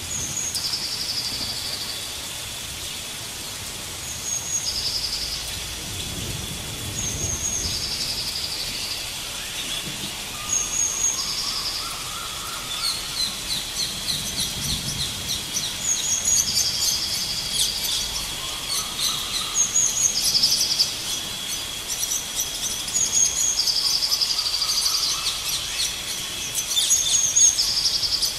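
Night chorus of tree frogs calling: short high chirping calls repeat every second or two, and from about halfway rapid clicking trills join in, over a steady high whine.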